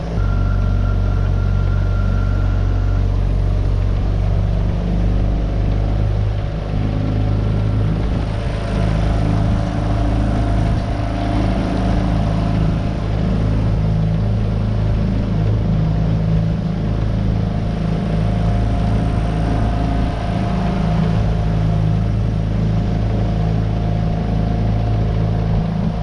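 9.8 hp Tohatsu four-stroke outboard motor running steadily at low cruising throttle, pushing a small V-bottom boat at about 6 mph.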